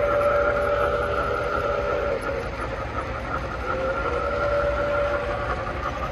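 O-gauge three-rail model train's electronic sound system blowing long whistle blasts, one ending about two and a half seconds in and another starting a second later, over the steady rolling rumble of the freight cars passing on the track.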